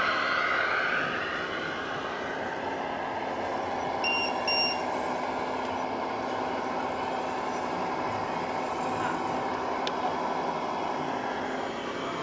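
Radio-controlled model truck running with a steady engine-like hum, with two short high beeps about four seconds in.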